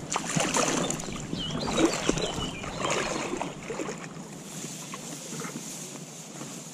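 Water splashing and sloshing around a landing net holding a freshly landed shad in the shallows, with reed stalks brushing and rustling close to the microphone. It is busiest for the first three seconds or so, then settles to a softer wash.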